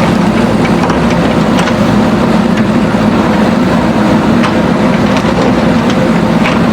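JCB backhoe loader's diesel engine running steadily, with a few faint clicks over the drone.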